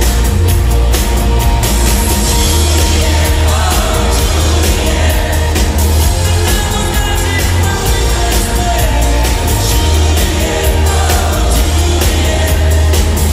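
Live band playing a pop song: a male lead singer sings over drums, electric bass and guitar, with a heavy bass.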